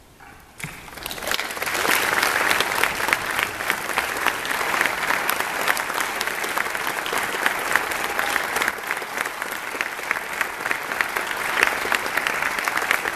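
Audience applauding after a performance: clapping breaks out about half a second in, swells to full applause within a couple of seconds and then holds steady.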